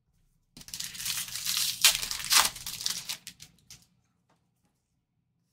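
A trading-card pack's wrapper being torn open and crinkled. It starts about half a second in, crackles on for about three seconds and stops.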